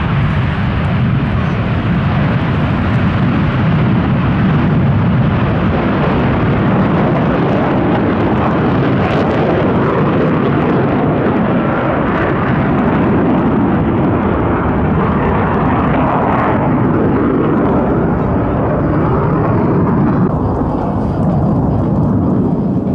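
Loud, steady jet noise from a Mitsubishi F-2 fighter's single turbofan engine as it flies past, the higher hiss thinning near the end.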